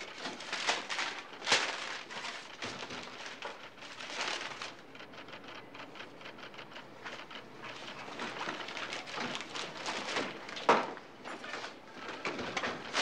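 Paper rustling and crinkling as sheets are handled and gathered, an irregular run of small crackles with a sharper crack about a second and a half in and another near the end.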